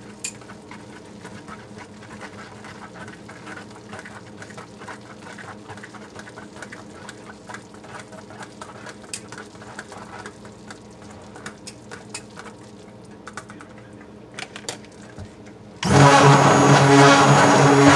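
A stick blender is pushed through thick hot process soap batter in a plastic tub with small clicks and scrapes over a low steady hum. About 16 seconds in its motor switches on and runs loud and steady in the batter.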